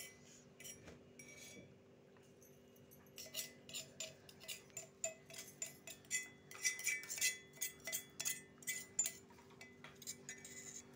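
Metal spoon scraping and clinking against the inside of a stainless steel mortar as garlic paste is dug out of it. The clinks are sparse at first and come in quick, irregular runs from about three seconds in.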